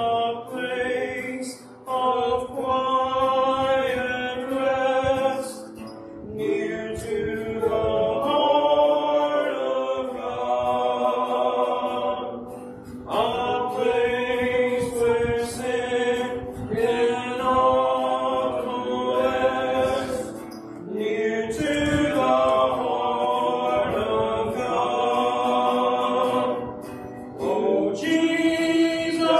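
A man singing a hymn and accompanying himself on guitar, in long phrases with short breaks between lines.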